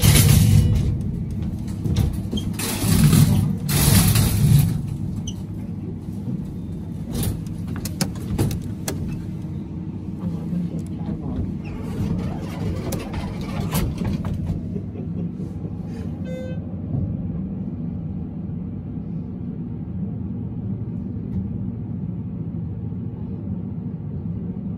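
Schindler-modernised hydraulic elevator travelling up: a steady low hum from the car's ride and its pump. The first few seconds have loud noisy bursts and clatter. A short beep-like tone sounds about sixteen seconds in.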